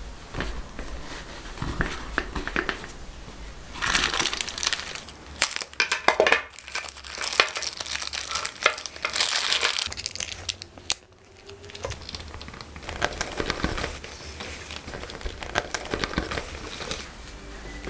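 Clear plastic packaging wrap crinkling and rustling in irregular bursts as it is handled and pulled off a new bag's leather shoulder strap.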